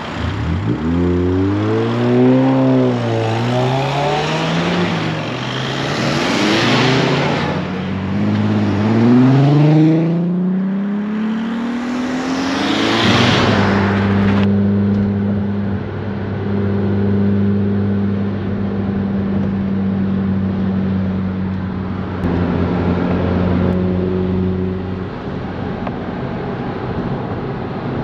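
VW Caddy van engines revving up through the gears as the vans pull away, the pitch climbing and dropping back at each change, then one long climb. About halfway it changes to a steady engine and road-noise drone heard inside a van cruising at speed.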